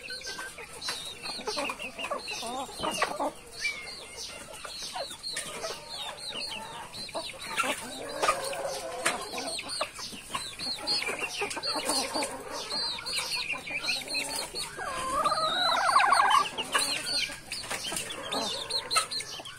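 A flock of chickens clucking as they feed, with many short high-pitched calls throughout. One longer, louder wavering call comes a little after three-quarters of the way through.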